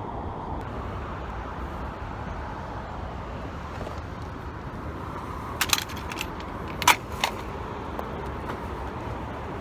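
Steady hum of distant road traffic, with a few sharp clicks or knocks a little past halfway, the loudest a single sharp one.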